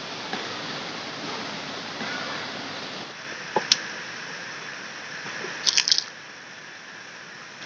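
Steady rush of flowing river water, with two sharp clicks about three and a half seconds in and a quick cluster of louder clicks near six seconds.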